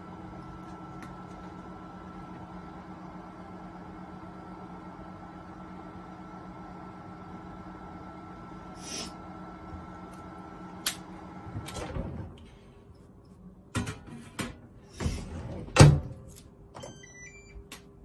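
Microwave oven running with a steady hum that cuts off about twelve seconds in. Several knocks follow, the loudest a sharp thump near the end, then a few short high beeps.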